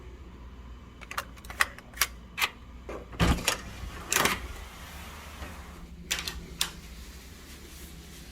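Irregular sharp clicks and clacks of hotel door lock hardware being handled and worked, about ten in all, the loudest about three and four seconds in.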